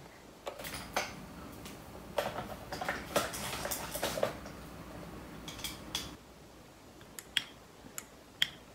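Clatter and clicks of handling a small plastic electrical switch, tools and multimeter test leads on a workbench. Near the end come a few sharp, separate clicks as the switch, fitted with a ballpoint-pen spring so it springs back to normally open, is pressed while being tested.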